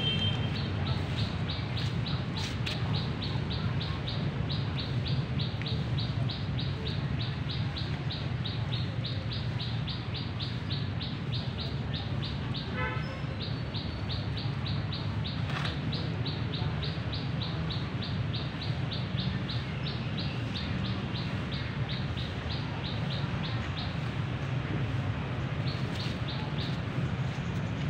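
A bird chirping rapidly and steadily, short high chirps at about four a second, pausing briefly near the end, over a steady low background rumble.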